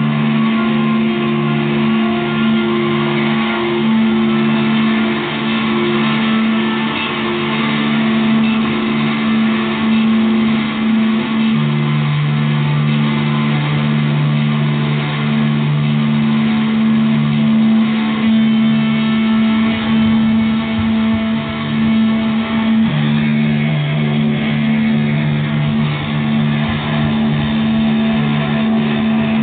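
Droning live experimental music from electric guitar and electronics: a steady sustained tone over a dense wash of sound, with a lower tone that pulses on and off and is held longest about halfway through.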